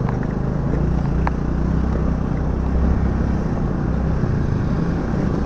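Motorcycle engine running steadily while riding over a rough gravel road, with a low rumble and an occasional click of loose stones.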